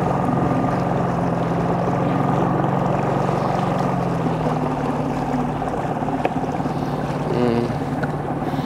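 A small boat's motor running steadily at slow cruising speed, a low hum with a higher whine over it, against water and wind noise. It eases off slightly about halfway through.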